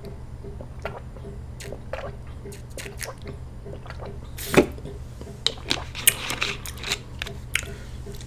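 Close-miked eating sounds: wet chewing with scattered mouth clicks and smacks. One loud smack comes about four and a half seconds in, and a quick run of sharper clicks follows it, over a steady low hum.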